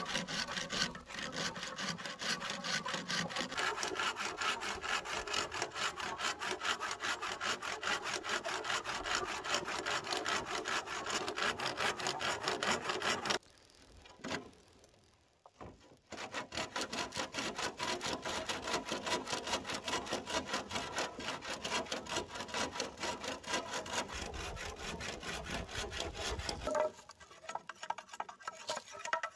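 Hand saw cutting bamboo in fast, even back-and-forth strokes. The sawing stops for a couple of seconds a little before halfway, then resumes, and goes fainter and sparser near the end.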